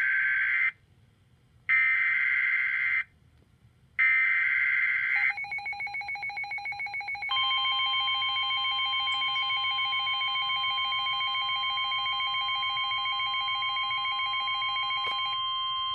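Emergency Alert System alert tones: three short bursts of SAME header data, each a harsh buzzing screech lasting about a second, with short silent gaps between them. These are followed by the attention signal, a loud steady tone that pulses for about two seconds and then holds.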